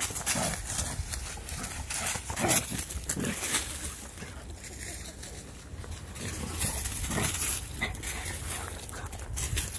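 A dog running and bounding through dry fallen leaves: irregular crunching and rustling of the leaves under its paws, with footsteps in the leaves.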